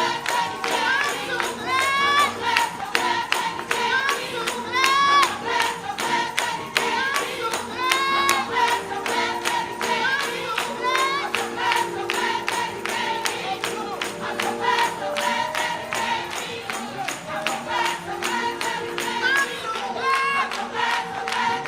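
Gospel worship music with a steady beat, held keyboard chords and singing.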